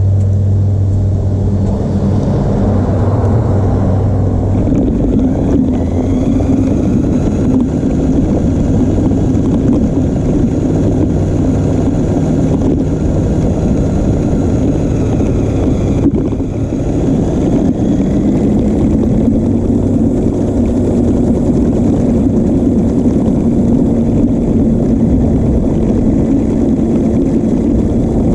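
Electric drive motor and gears of a New Bright Grave Digger RC monster truck running under way, heard from a camera mounted on the truck's body: a steady hum over a loud, dense rush of noise. Its pitch shifts several times and rises somewhat about two-thirds of the way through, with one sharp click just before.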